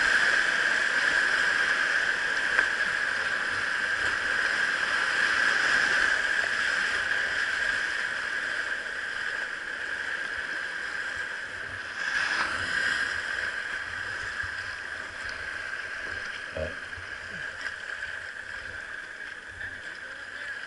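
River current rushing around a kayak as it runs a riffle, gradually quieter, with a few brief knocks.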